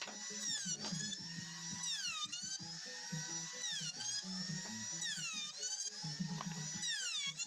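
A handheld wood router motor whines at high speed. Its pitch sags sharply and recovers about once a second as the bit is loaded in the teak. Background music with a bass line runs underneath.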